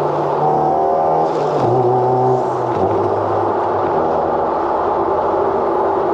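A car being driven: engine and road noise, steady in level, with the engine pitch shifting a few times.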